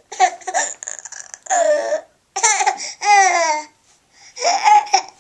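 Laughter in about six short bursts, with high squeals among them.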